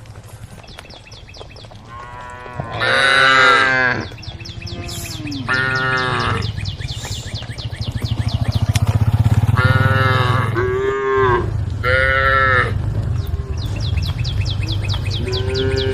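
A herd of cattle mooing: about five long calls one after another, the loudest about three seconds in, with a new call starting near the end.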